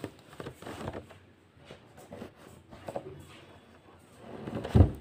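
Faint rustling and light taps of fingers working coloured thread into the warp threads of a wooden hand loom, pressing a thread end in. A single dull thump near the end.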